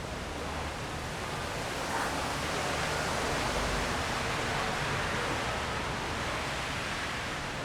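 Steady rain falling, an even hiss that swells a little in the middle.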